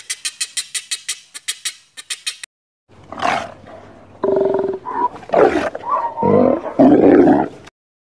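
A rapid run of short, evenly spaced high calls, about seven a second, for the first two and a half seconds. Then a sea lion barks and roars in several loud, rough calls that stop shortly before the end.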